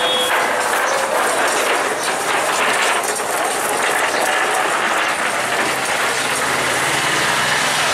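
Knife blade scraping scales off a large garfish on a wooden block: a fast, continuous run of rasping scrapes.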